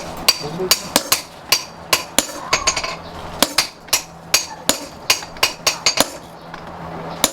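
Hand hammer striking steel on an anvil, a steady run of sharp, ringing blows about two to three a second: forging a knife from chainsaw steel.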